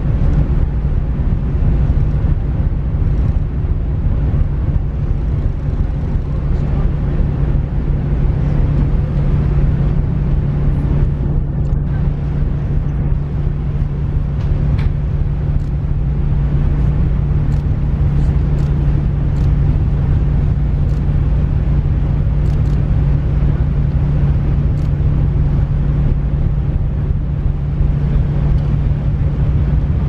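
Steady low drone of a ship's engines, with a constant hum and wind rumbling on the microphone. A few faint clicks are scattered through the second half.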